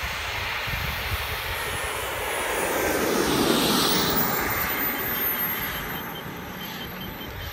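Radio-controlled model jet's engine running as the plane rolls out on the runway after landing, a rushing sound with a thin high whine that slowly falls in pitch. The rush swells as the jet passes close about three to four seconds in, then fades as it rolls away.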